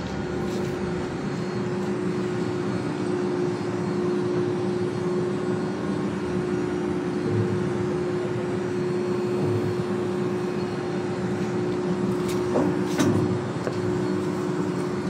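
Steady drone of shipboard deck machinery, with a constant tone. A couple of short knocks come near the end.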